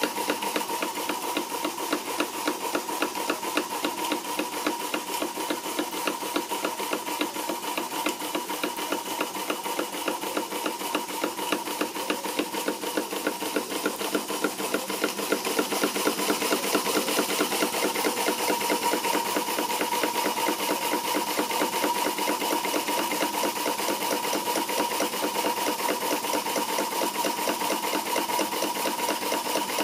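Stuart No. 4 single-cylinder vertical model steam engine running under steam, its piston and valve gear beating in a fast, even rhythm with a steady tone underneath.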